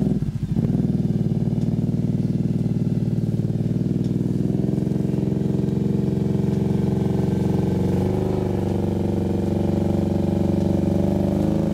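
ATV engine running steadily at low speed while the quad is winched up a steep creek bank, with a brief dip in pitch about eight seconds in.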